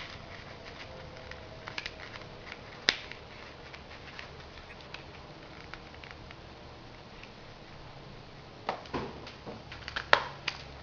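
Magazine paper rustling and crinkling softly as it is rolled between the fingers into a tight cone, with scattered small clicks. Near the end, a louder run of rustles and knocks.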